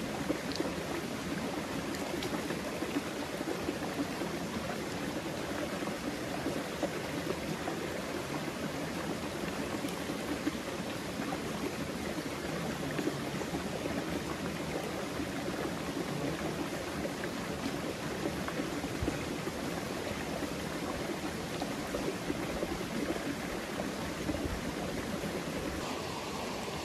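Running water from a forest stream: a steady, even rush with no break.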